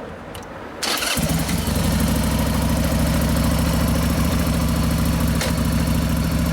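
Motorcycle engine started: a brief crank about a second in as it catches, then a steady idle.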